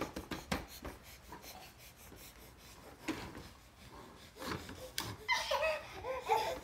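Hard plastic ride-on toy knocking and rubbing as toddlers grab and pull at its ladder, with a few sharp knocks in the first second and another about three seconds in. Near the end a toddler babbles briefly.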